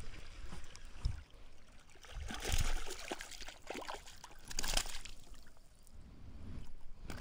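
A hooked snakehead splashing at the water's surface as it is reeled in and lifted out. The splashing comes in two louder bursts, about two and a half and four and a half seconds in.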